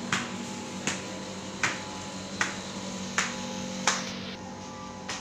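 Six sharp clicks like finger snaps at an even beat, about three every two seconds, over a steady hum. The beat stops about four seconds in, with one fainter click near the end.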